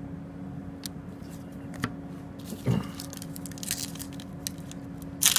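Light handling of trading cards and a foil card-pack wrapper, with scattered soft clicks and rustles over a steady room hum, and a sharp burst of wrapper crinkling right at the end.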